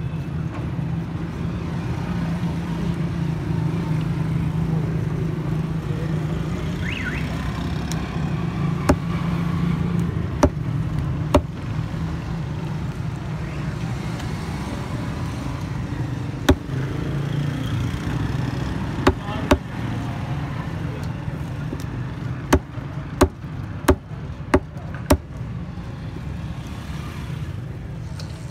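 A knife chopping fish on a wooden chopping block: sharp knocks, a few spaced out at first, then a quick run of five near the end. Under them runs a steady hum of street traffic.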